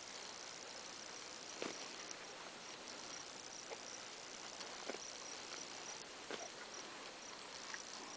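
Quiet outdoor ambience: a thin, steady high-pitched buzz over a soft hiss, with a few scattered soft knocks.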